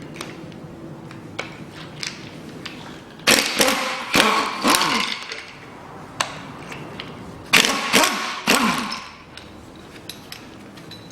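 A power wrench runs in two short bursts, each with its motor pitch rising and falling, as it undoes the bolts of an engine bracket.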